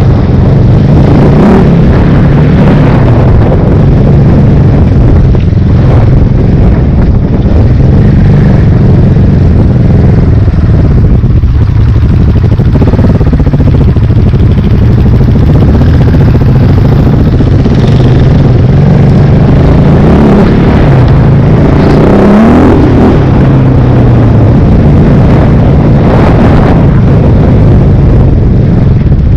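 Big single-cylinder four-stroke enduro motorcycle engine running loud and steady while riding a dirt track, its pitch wavering with the throttle and briefly rising in a rev about three-quarters of the way through.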